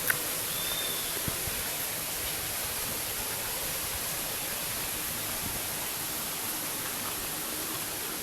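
Waterfall rushing steadily, with a brief faint high chirp about a second in.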